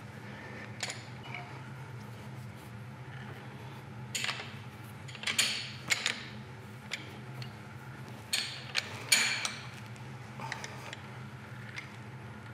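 Scattered metal clanks and clicks from a chuck key turning the jaw screws of a Mori Seiki engine lathe's four-jaw chuck and from steel tooling being handled on the machine. They come in quick clusters about four to six seconds in and again around eight to nine seconds, over a steady low hum.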